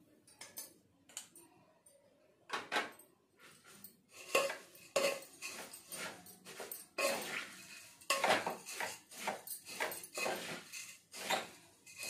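A spoon stirring and tossing seasoned puffed rice in a metal pot, with irregular scraping and clinks against the pot, sparse at first and busier from about four seconds in.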